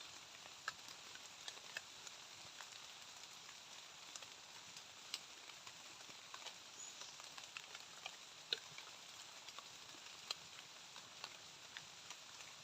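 Light rain falling in the forest: a faint steady hiss with scattered drops ticking irregularly.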